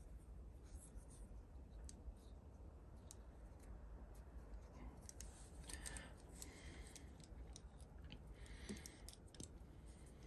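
Faint handling sounds of a steel digital caliper: small clicks and the scrape of its sliding jaw, loudest in two short spells about six and nine seconds in, over near-silent room tone.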